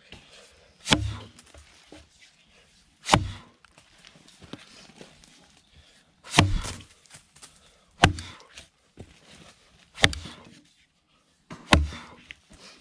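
An axe chopping into a fallen log: six sharp strikes, one every one and a half to two seconds or so, each a heavy thunk as the bit bites into the wood.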